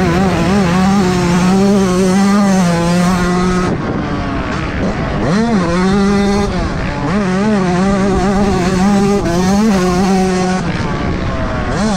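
Yamaha YZ125 single-cylinder two-stroke motocross engine run hard on the throttle, heard from on the bike. Its pitch climbs and falls constantly through gear changes and corners, with sharp drops and quick recoveries several times.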